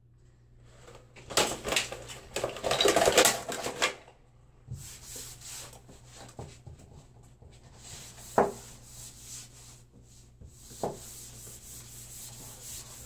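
Wallpaper being rubbed and smoothed by hand against a pasted wall. Loud scraping sweeps come in the first few seconds, then quieter rubbing, with two sharp taps in the second half.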